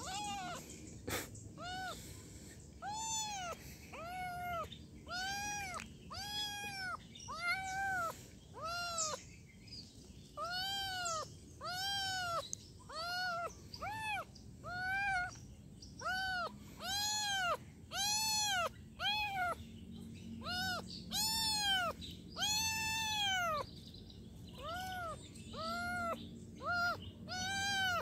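Young kitten meowing over and over, about once a second, each meow rising and then falling in pitch.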